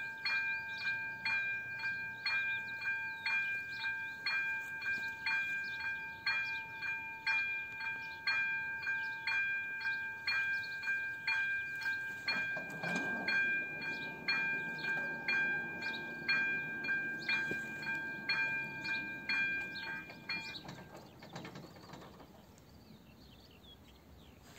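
AŽD electronic level-crossing bell (type Elektronický 02) ringing at about two strikes a second, the warning that a train is coming. A lower rumble joins about halfway through, while the barrier arms come down. The bell stops about four seconds before the end.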